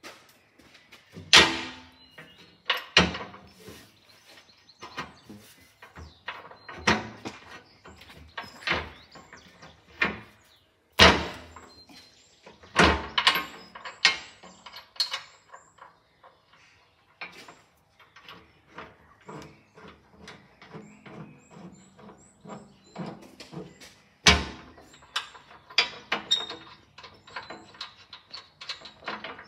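Irregular metal knocks, clanks and clicks from hand work on a steam roller's smokebox front and front roll. Several much louder knocks stand out, about a second in, near three seconds, around eleven and thirteen seconds, and again near twenty-four seconds.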